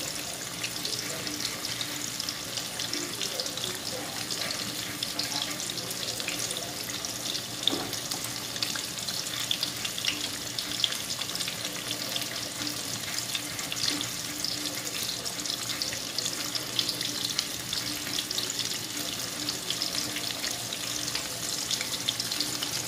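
Breaded chicken cordon bleu shallow-frying in oil in a pan: a steady sizzle with scattered small crackles and pops, and a few sharper pops along the way.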